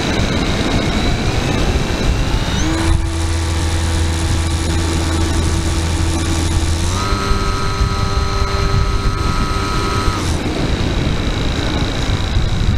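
FPV quadcopter's electric motors and propellers heard from its onboard camera: a steady rushing noise with a whine of several steady tones that sets in about three seconds in, steps up in pitch about halfway and cuts out about three seconds later.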